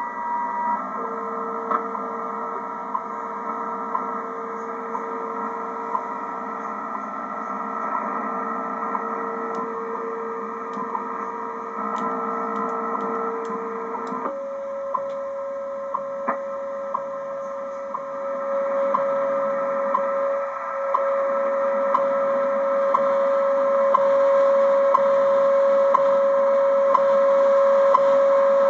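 Shortwave radio receiving a standard time-signal broadcast: a short tick every second over a steady audio tone, with radio hiss. The tone steps up in pitch about 14 seconds in.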